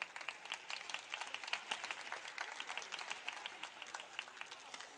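Arena spectators applauding a won point: a dense patter of many hand claps that swells and then thins out toward the end.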